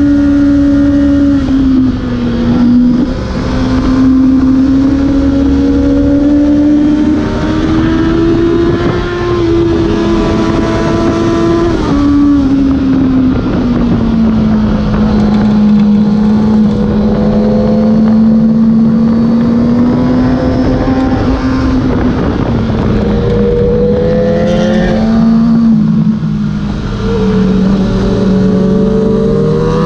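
Kawasaki ZX-6R inline-four engine running hard at high revs, its pitch climbing and falling repeatedly with throttle through the bends, with a sharp drop about twelve seconds in and dips again near the end. A steady rush of wind runs underneath.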